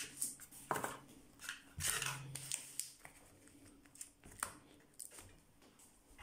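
A foil takeaway tray with a cardboard lid being handled on a worktop: quiet crinkling and scraping, with several sharp clicks and taps.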